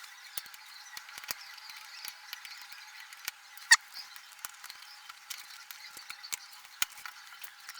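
Small scattered clicks and light scraping of metal tweezers prying out the plastic clip that holds a Bluetooth speaker's metal grill, with one sharper click about three and a half seconds in, over a faint hiss.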